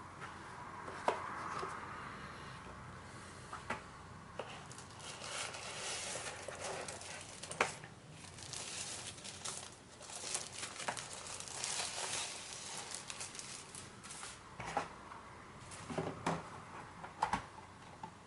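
Packaging being handled during an unboxing: rustling and crinkling, with scattered sharp clicks and knocks.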